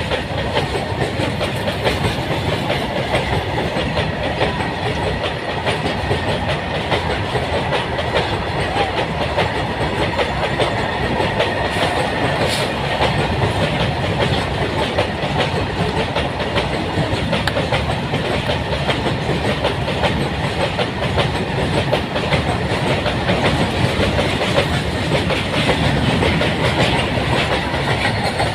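Goods train's wagons rolling steadily past over a rail bridge, wheels clattering continuously over the rail joints.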